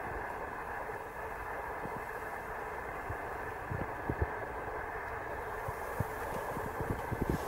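Steady low background rumble with a few soft low knocks in the second half.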